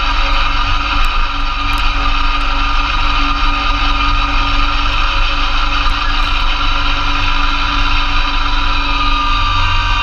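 2004 Massey Ferguson GC2300 compact tractor's three-cylinder diesel running steadily, driving a PTO-powered Blizzard B48 snowblower through heavy wet snow. Its pitch sags slightly near the end.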